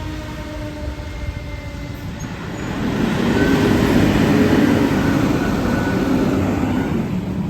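A fire engine going past: its siren tone dies away in the first two seconds, then the heavy diesel engine and tyre rumble swell about three seconds in and ease off near the end.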